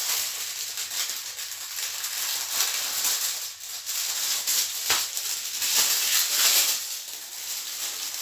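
Crinkly rustling of thin plastic film being handled and peeled off a store-bought paratha, irregular throughout, with a sharp crackle about five seconds in.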